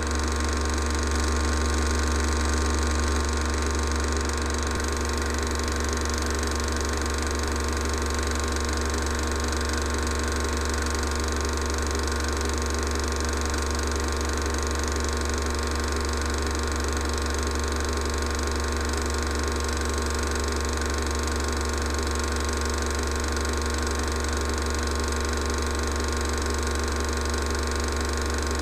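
16mm cine projector running, a steady unchanging mechanical whirr with a strong low hum under it.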